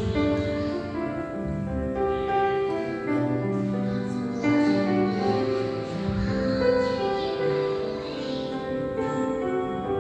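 Worship music on keyboard and piano: held chords that change every second or so.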